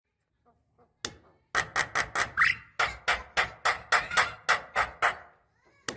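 Javan myna giving a fast run of harsh, scratchy calls, about three a second, with a rising whistled note mixed in, after a quiet first second. This is a lure call used to set off a silent caged myna.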